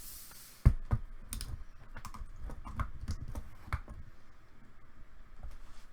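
Typing on a computer keyboard: irregular key clicks, busiest over the first few seconds and then thinning out, after a brief hiss at the start.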